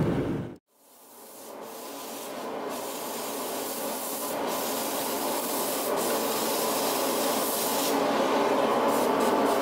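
A forge burner's low roar cuts off about half a second in. Then an oxy-fuel cutting torch hisses steadily as it rough-cuts a blade from steel leaf spring, throwing sparks; the hiss fades in and builds to a constant level.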